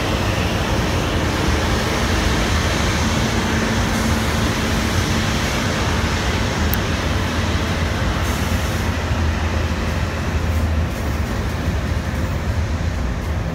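Pacific National electric locomotives hauling a coal train pass close by, followed by coal wagons rolling past on the rails: a steady, loud rumble of wheels on track with a low hum.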